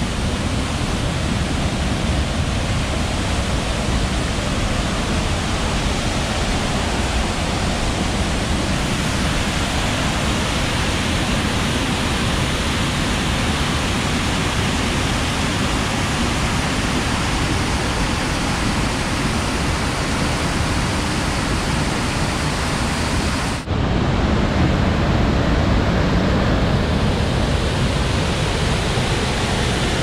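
Steady rushing of a rocky whitewater cascade on a river, an even noise without pauses. About two-thirds through it drops out for an instant and comes back slightly louder.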